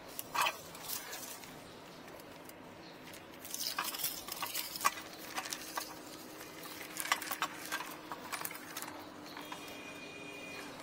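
Irregular light clicks and rustling of cables being handled and gathered up by hand, in short clusters, over a faint steady hum.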